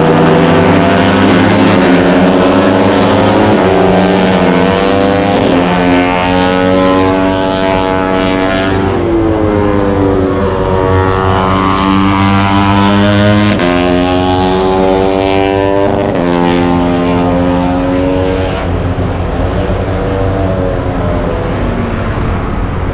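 Moto3 racing motorcycles, 250 cc single-cylinder four-strokes, running at high revs on track. The engine pitch steps up sharply at each gear change and glides down again several times.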